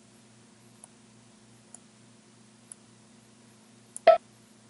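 Computer mouse clicks: a few faint ones about a second apart, then a single much louder, brief knock a little after four seconds in, over a faint low steady hum.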